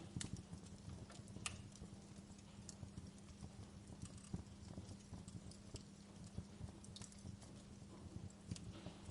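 Campfire burning: wood crackling with irregular sharp pops over a low rumble of the flames.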